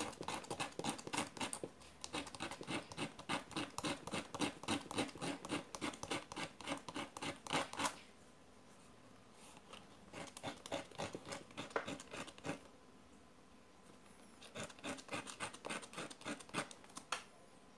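Quick back-and-forth strokes of a flatlock sewing machine's steel looper point being rubbed on fine sandpaper, about 200 grit, to dress a damaged point back to sharp. There is one long run of rasping strokes, then two shorter runs with pauses between them.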